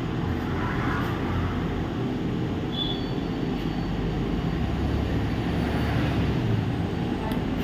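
Steady low background rumble, with one short high beep from a multimeter's continuity tester about three seconds in.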